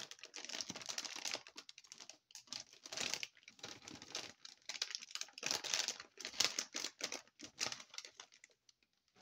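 Metallized anti-static bag crinkling and rustling as a graphics card is slid out of it and the empty bag is handled, in irregular bursts with a brief lull about two seconds in, dying away shortly before the end.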